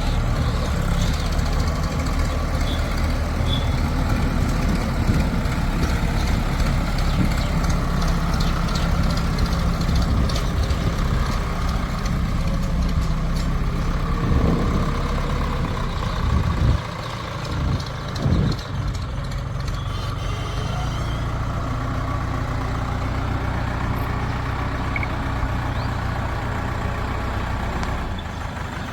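Diesel engine of a JCB 3DX backhoe loader running steadily at work. Just past halfway the engine note drops lower, with a couple of short revs close together.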